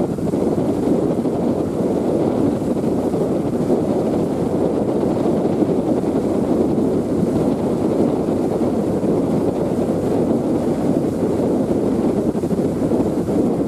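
Steady wind rushing over the microphone on the deck of the moving JR Miyajima ferry, an even, unbroken noise.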